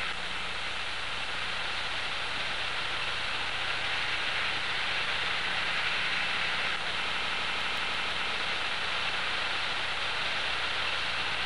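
Steady, even hiss with a faint low hum beneath it.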